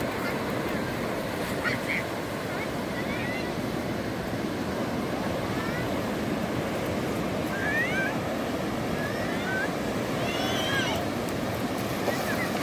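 Sea surf breaking and washing up a sandy beach, a steady rush of water. A few short, high-pitched chirping cries sound faintly over it several times.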